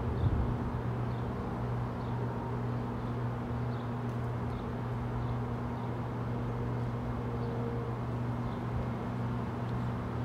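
A steady low mechanical hum at a railway platform, with faint, short high chirps of a bird about once a second.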